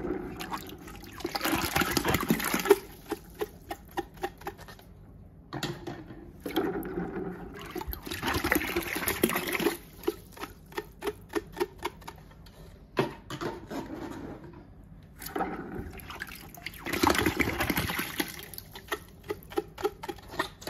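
Water sloshing and splashing in a bucket as plastic bottles are swished and rinsed by hand. The splashing comes in three spells, with short clicks and knocks between them.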